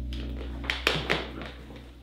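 Background music with a low held bass, and a few light taps about a second in.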